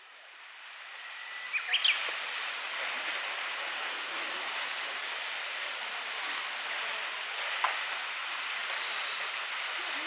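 Outdoor forest ambience: a steady rushing hiss that fades in over the first two seconds, with a few short high chirps about one and a half to two seconds in.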